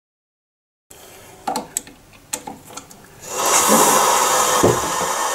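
A few sharp clicks and knocks of plastic parts being handled, then, about three seconds in, loud, steady water rushing and hissing in a toilet cistern.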